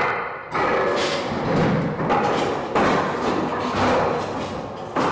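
Heavy anchor chain on a Nimitz-class aircraft carrier running through the deck chain pipe, a loud metallic clanking and rumbling with repeated heavy knocks as the links go down.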